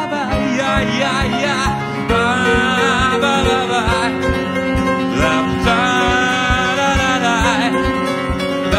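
Live song: a man singing into a microphone over acoustic guitar played in a steady strummed rhythm.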